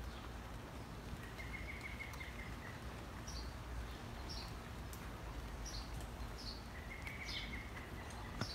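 Birds calling outdoors over a steady low background hum: two held whistled notes and a scattering of short, high, downward chirps, repeating through the second half.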